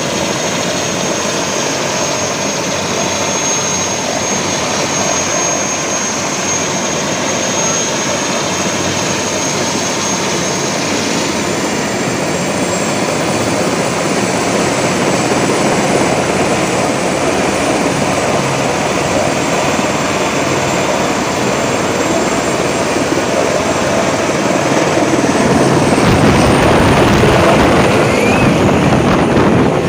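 Airbus AS350 Écureuil single-engine turbine helicopter running on the ground with its rotor turning: a steady turbine whine over the rotor's rushing chop. The whine steps up in pitch about eleven seconds in and again near the end, and the sound grows louder and fuller in the last few seconds.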